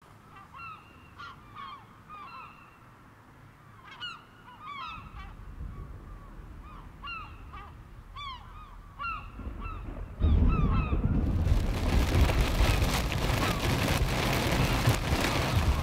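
Gulls calling over and over, short rising-and-falling cries. About ten seconds in, a much louder, steady rushing noise suddenly takes over and covers everything.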